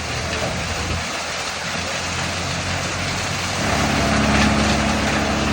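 An engine-driven machine running steadily, with a hissing, grinding noise over its hum. About three and a half seconds in, it grows louder and a stronger steady hum comes in.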